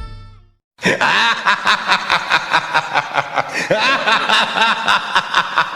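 Joker-style evil laughter ringtone: a maniacal laugh in rapid, even pulses of about four a second. It starts about a second in, after the tail of a song fades out and a brief gap of silence.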